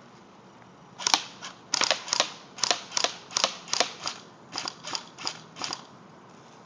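Airsoft AK-47 rifle firing about fifteen single shots in quick succession, roughly three a second at an uneven pace, each a sharp snap. The shooting starts about a second in and stops near the end.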